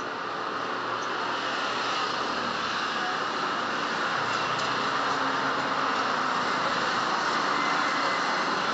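Road traffic driving past: a motor scooter, then a car, their engine and tyre noise building steadily and loudest as the car goes by near the end.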